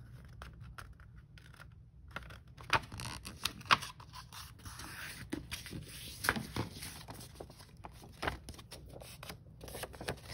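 A sheet of paper being folded in half and creased by hand: irregular crackling, crinkling and scraping of the paper.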